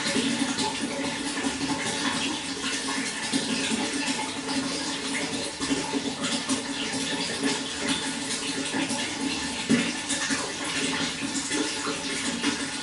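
Running water flowing steadily, a continuous rushing splash without a break.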